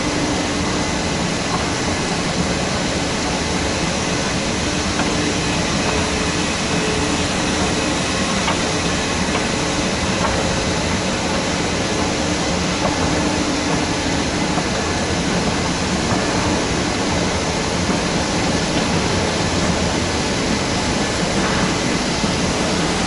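Steady mechanical rumble and hum of a long metro escalator running, heard while riding it, with faint steady tones over the noise.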